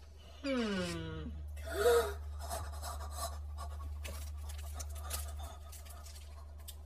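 Faint crinkling and rustling of a chocolate-bar wrapper being handled, after a short falling vocal sound near the start.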